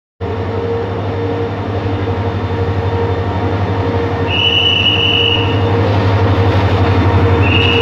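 Diesel-electric locomotive running with a steady low engine drone that grows louder as it draws alongside the platform. Two brief high-pitched squeals from the wheels cut in, about four seconds in and again near the end.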